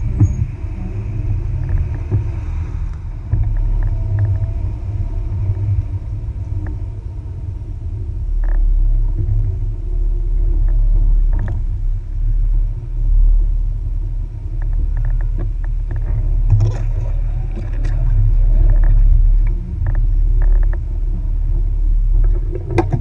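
Jeep Wrangler TJ running in low gear as it crawls over a rough dirt trail, heard as a continuous low rumble that deepens partway through. Scattered knocks and rattles from the body and suspension over bumps come mostly in the second half, with one sharp knock near the end.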